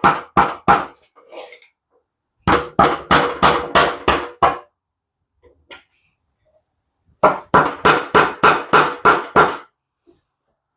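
Hammer blows on metal in three runs of quick strikes, about four a second, with a faint ringing tone under them, used to knock the stuck oil pan loose from a 12A rotary engine.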